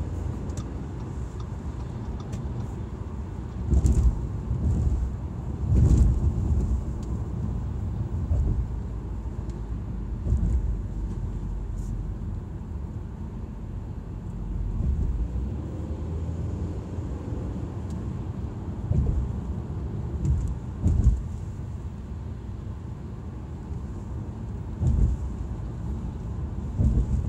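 Audi A4 being driven: a steady low engine and road rumble, swelling louder several times for about a second each, with a few light clicks.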